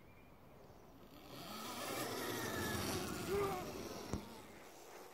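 A child's small dirt bike setting off across grass about a second in and riding away, a faint whine over a rushing noise that builds and then eases. A single sharp click about four seconds in.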